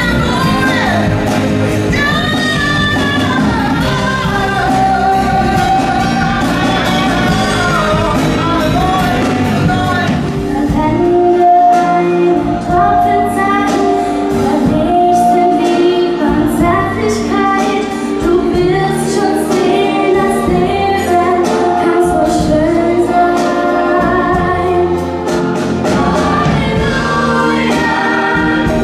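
Live concert music: a woman singing to acoustic guitar. From about eleven seconds in, a large choir sings with a band and drums.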